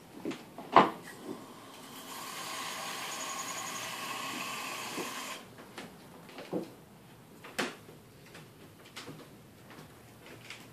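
Kitchen clatter: a sharp knock about a second in, then a steady hissing rush for about three seconds that cuts off suddenly, followed by a few light knocks and taps.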